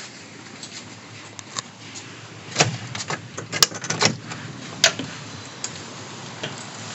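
A quick run of knocks and clicks, about half a dozen sharp ones in a couple of seconds around the middle, over a faint steady hum.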